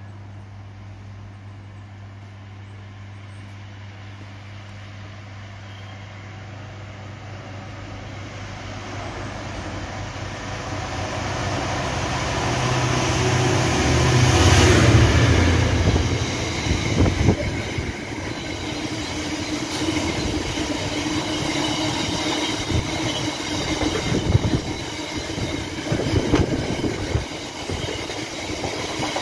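A train drawing into the station, its noise building to a peak about halfway through, then wheels knocking and clattering over the rail joints as it runs past. A steady low hum sits underneath the first part.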